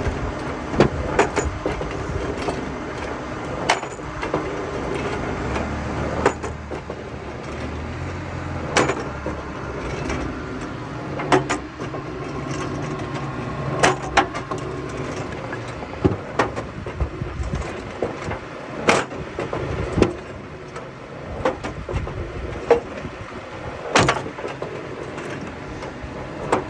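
A firewood machine running steadily, with sharp knocks and clatters of wood at irregular intervals every second or few.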